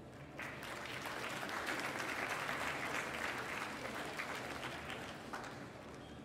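Audience applauding, starting about half a second in, building and then fading near the end.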